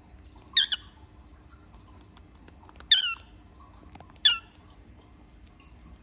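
Baby cockatiel giving three short, loud squawking calls, each dropping slightly in pitch; the first is doubled and the others come about two and one and a half seconds apart. These are a young chick's begging calls while it struggles to crack seeds. Faint pecking clicks sound between the calls.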